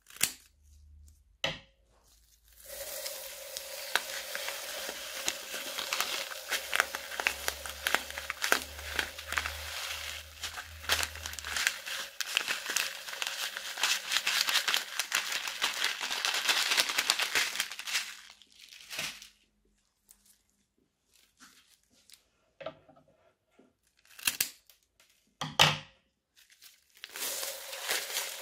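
Scissors snip the tip of a plastic piping bag twice. Then the bag crinkles steadily for about fifteen seconds as tiny beads are squeezed out of it onto slime. A few scattered crinkles and taps follow, and the crinkling of a second bag starts near the end.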